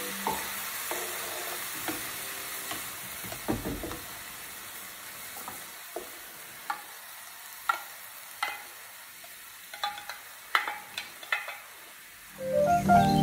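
Vegetables in stir-fry sauce sizzling in a frying pan as they are stirred. The spatula gives scattered clicks and knocks against the pan, and the sizzle slowly dies down. Background music comes in near the end.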